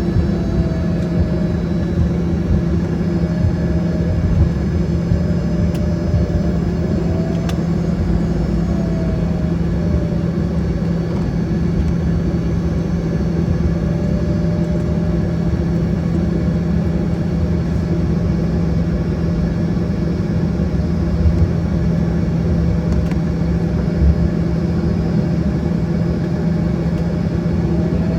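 Embraer ERJ-145's Rolls-Royce AE 3007 turbofans running steadily over a low rumble, heard inside the cabin; a mid-pitched engine tone wavers slightly.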